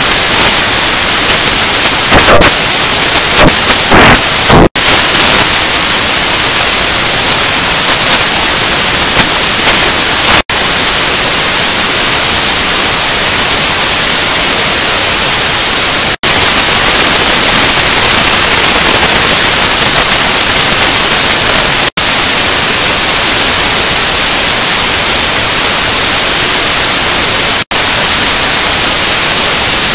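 Cartoon soundtrack distorted by stacked audio effects into loud, harsh static-like noise with no recognisable sound left. It cuts out for a split second about every six seconds.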